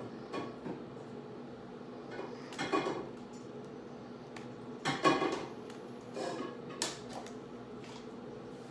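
Dishes and cutlery clinking and clattering during a meal, in about five short bouts, the loudest a little after five seconds in, over a steady low hum.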